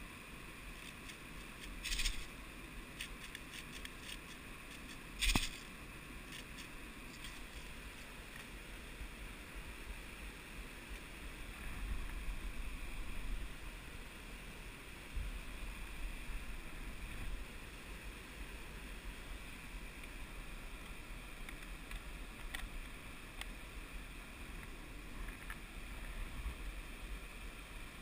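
Handling and movement noise on a gear-mounted camera: rustling and scraping as the wearer shifts against mossy rock and dry leaves, over a low steady rumble. Two short sharp knocks stand out, about two seconds and five seconds in.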